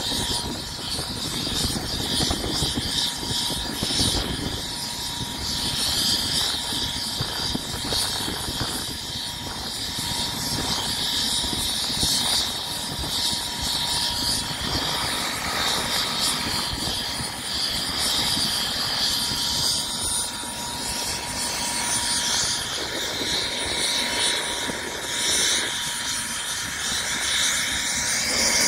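Light sport aircraft idling while holding short, its propeller turning. A steady high-pitched whine sits over the engine, giving it an unusual, turbine-like sound.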